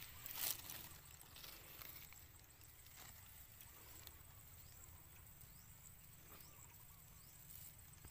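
Mostly near silence: a thin plastic bag crinkles briefly about half a second in, then there is only faint rustling and snapping of grass and weeds being picked by hand.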